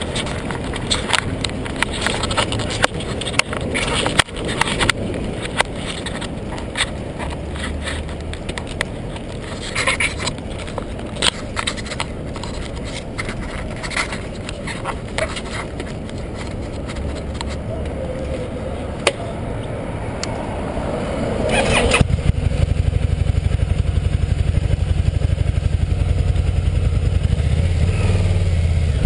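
Harley-Davidson Night Rod's V-twin engine heard while riding, under wind buffeting and sharp knocks on the helmet or handlebar camera. About 22 seconds in, the wind noise drops away and the engine's low, even exhaust pulse comes forward, louder and steady, as at idle or low speed.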